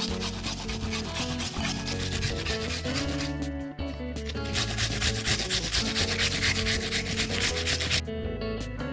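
An onion grated on a handheld grater with metal blades in a green plastic frame, in quick rasping strokes, with a short break near the middle, stopping about a second before the end. Background music plays underneath.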